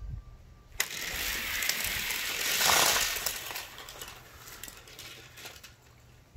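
A sharp click about a second in as the starting gate opens, then a pack of 1/64 die-cast cars rolling and clattering down a plastic MagTrack gravity track. The rattling swells to its loudest about three seconds in and fades as the cars run on down the track.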